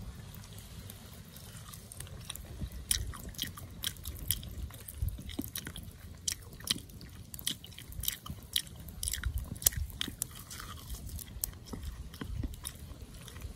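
A person biting into and chewing crispy fried chicken, the coating crunching in many sharp crackles that start a couple of seconds in.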